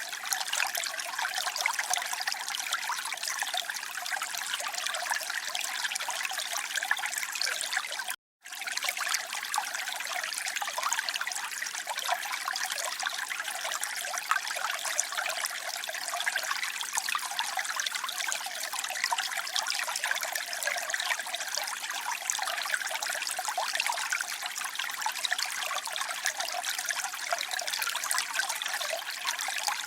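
Water trickling and splashing in a steady flow, the sound mostly light and high. It cuts out completely for a fraction of a second about eight seconds in, then carries on unchanged.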